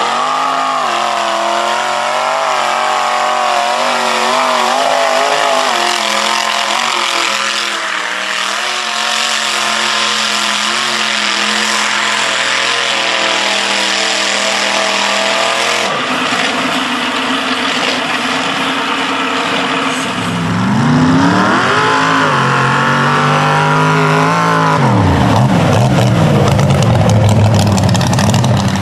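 Mud truck engine running hard at high revs, its pitch wavering and sagging, then swinging sharply up and down with hard revving in the last third.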